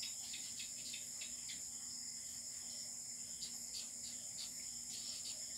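Felt-tip marker writing on paper: faint, irregular scratchy strokes as letters are drawn, over a steady high-pitched chirring in the background.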